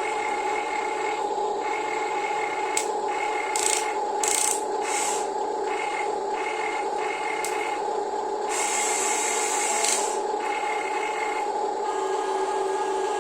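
Electric gear motors of Huina radio-controlled construction models (1592 excavator, 1573 dump truck) whining steadily while loading sand, with a higher motor tone cutting in and out. Sand scrapes and pours in short bursts about four seconds in and again for a longer stretch from about eight and a half to ten seconds in.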